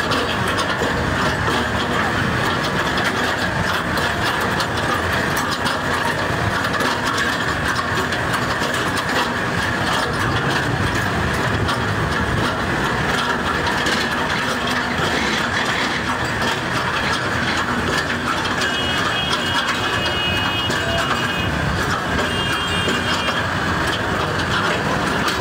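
Tractor running as it rolls slowly, a steady engine noise under continuous mechanical rattling and clatter. A few faint high tones come through about three-quarters of the way in.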